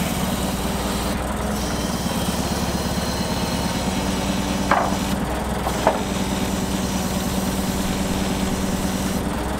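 Forklift engine running steadily at idle. Two short squeaks come about a second apart near the middle.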